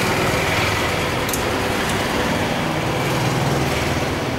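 Steady road traffic noise with the low hum of vehicle engines running nearby. The oil being poured into the motorcycle's engine is not heard over it.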